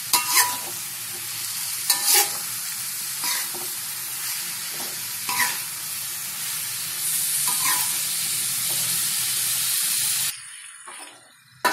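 Eggplant rounds and chili spice paste sizzling in a metal wok, with a metal spatula scraping and clinking against the pan about every second or two as it stirs. The sizzle cuts off suddenly about ten seconds in, and a sharp metallic clang comes right at the end.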